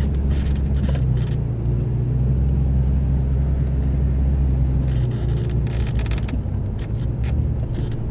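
Jeep engine running at low speed while crawling over rocks, a steady low rumble heard from inside the cab, with scattered knocks and rattles as the body jolts over the rough ground.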